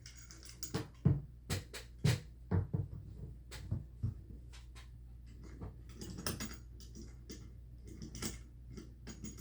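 Knocks, clicks and scraping from handling a portable woodworking vise as it is set down on a rag and clamped to a desk. The sharpest knocks come in the first few seconds, followed by softer scraping and rustling.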